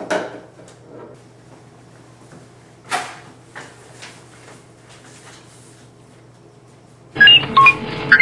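Knocks and bumps as someone climbs into a foil-covered prop box: a sharp knock at the start and another about three seconds in. About seven seconds in, a loud electronic sound effect of warbling, beeping tones cuts in, the prop time machine's 'departure' effect.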